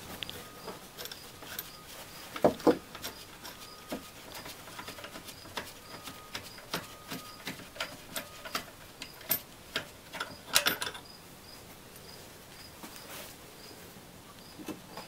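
Hand tools and metal parts at work on a car's engine mount as it is unbolted and lifted out: rapid light clicking with scattered metal knocks, the loudest about two and a half and ten and a half seconds in.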